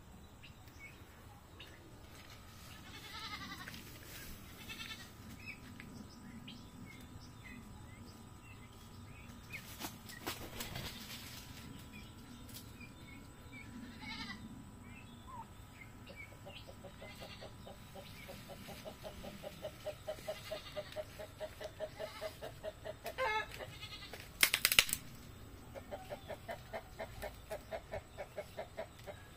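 Turkeys vocalizing: scattered soft peeps, then from about halfway a long rapid rattling trill of low notes that breaks off briefly and resumes near the end. A short sharp noise stands out just before the trill resumes.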